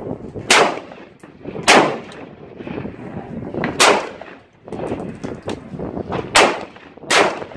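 AR-15 rifle firing five single shots at irregular intervals, each sharp crack trailing off into echo.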